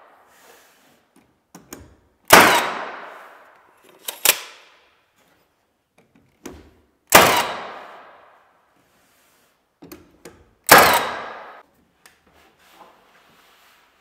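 Nail gun shooting nails into wooden trim casing: four sharp shots a few seconds apart, each with a fading tail, and small clicks of the tool being handled between them.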